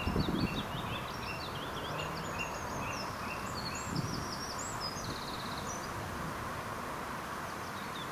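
Small birds singing in quick, varied high chirps and a short trill over steady outdoor background noise; the singing thins out after about six seconds.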